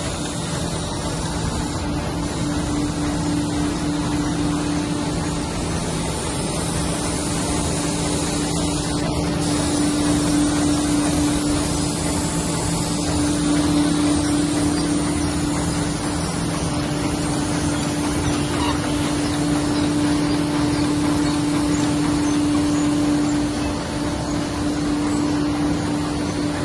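Meccanotecnica Aster 180 book-sewing machine running steadily: a continuous mechanical hum with a constant tone.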